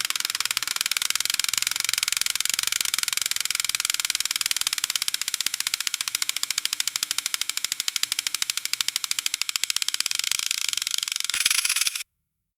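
Electric bone saw motor running with a rapid, even buzzing rattle, mostly high-pitched. It shifts slightly near the end, then cuts off suddenly.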